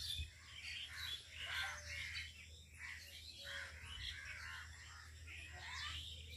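Several birds chirping and calling faintly, many short calls overlapping one another.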